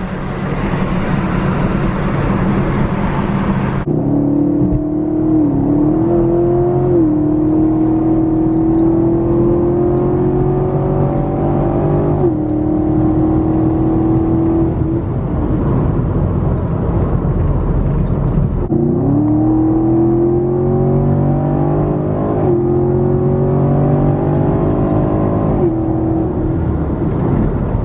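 V8 muscle car engine under acceleration: its pitch climbs steadily and drops sharply at each gear change, in two runs of shifts. A loud hiss cuts off about four seconds in.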